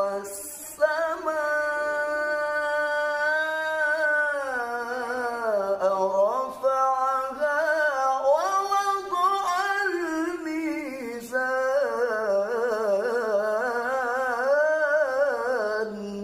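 A man reciting the Qur'an in the melodic tilawah style, holding long ornamented notes that waver and turn. There is a short pause for breath about half a second in and another about eleven seconds in.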